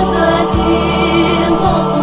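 Music with sustained choir-like voices over held chords, and a few soft percussive hits.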